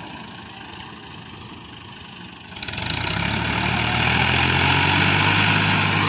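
Tractor diesel engine running, then revved hard about two and a half seconds in and held there under heavy load as it pulls a loaded wheat trolley through soft ground.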